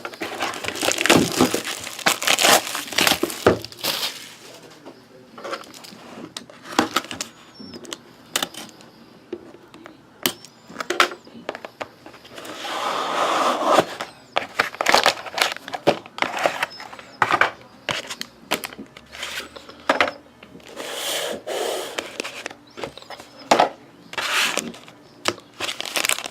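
A sealed box of hockey trading cards and its packs being opened by hand: crinkling and tearing of wrapping mixed with many sharp clicks and knocks of packaging being handled.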